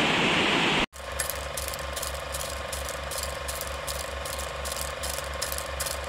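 Rushing water of a spring-fed cascade. About a second in it cuts abruptly to an old film projector running, a steady mechanical clatter about four times a second with faint clicks and a hum.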